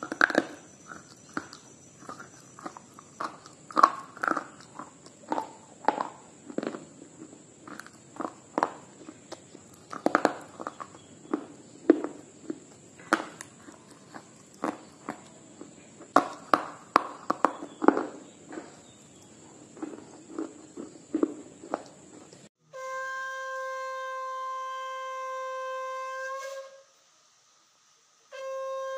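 Close-up crunching and chewing of a dry, chalky block, with sharp irregular crunches every second or so. About 22 seconds in it gives way to a conch shell blown in a long steady note for about four seconds. A second blast starts near the end.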